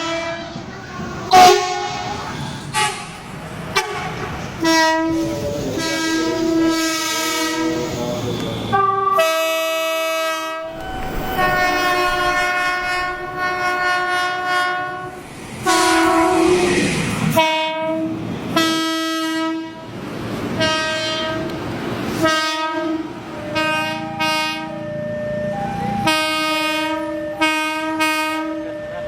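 Indonesian train horns sounding the semboyan 35 signal, many separate soundings one after another. Short and long blasts of several-note horn chords, with sudden cuts between different horns and the rumble of the train underneath.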